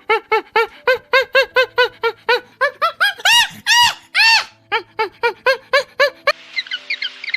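An animal's rapid series of short, high-pitched calls, about four a second, with a few longer drawn-out calls in the middle. The calls stop abruptly near the end and give way to quieter rapid bird twittering.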